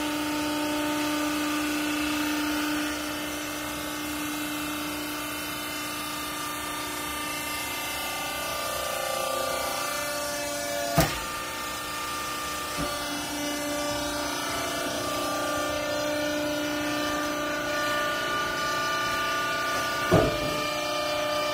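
Hydraulic pump and motor of a vertical clothing baler running with a steady whine, its pitch shifting slightly partway through. Two sharp knocks, one about eleven seconds in and one about twenty seconds in.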